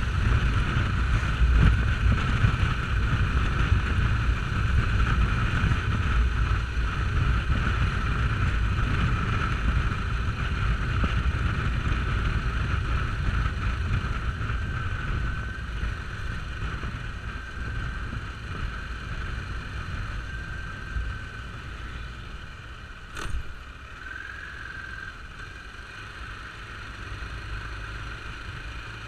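A motorcycle riding at road speed, heard from a camera mounted on the bike: heavy wind rumble on the microphone over the engine's steady drone and a steady high whine. It gets quieter through the second half, and a single sharp click comes about three quarters of the way through.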